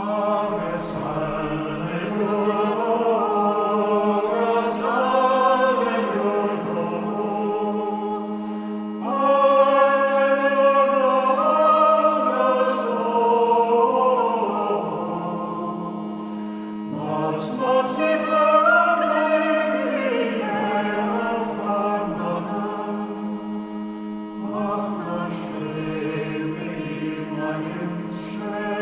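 Recorded music: singing voices in long phrases over a steady held drone.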